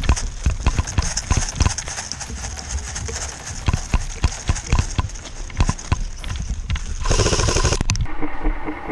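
Irregular sharp knocks and clicks, two or three a second, over a steady hiss, with a louder rustling burst about seven seconds in.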